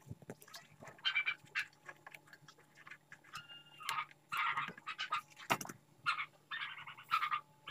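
Faint animal calls in short, repeated bursts, one of them held steadily for a moment about three and a half seconds in, with a single sharp click about five and a half seconds in.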